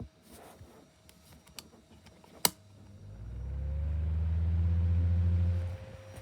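A sharp click, then a 7-inch desk fan's electric motor humming with a low, slightly pulsing drone that builds up over about a second, with a faint whine slowly rising as it labours up to speed. The slow start is the sign of its worn, dry bearings. The hum drops away just before the end.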